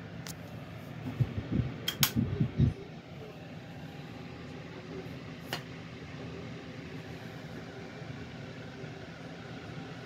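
Holmes 6-inch metal table fan with a 15-watt motor, running steadily with a low hum and rushing air. A burst of loud low thumps comes about a second in, with a few sharp clicks around two seconds and one more past the middle.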